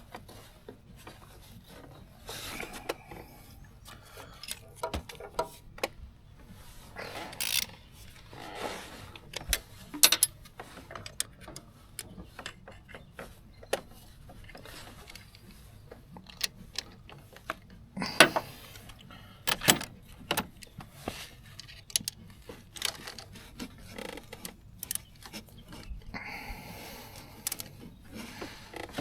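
Intermittent clicks, clinks and short scrapes of hand tools and metal parts being handled while working on a car engine's timing belt drive, with a few longer rubbing or scraping sounds among the sharp knocks.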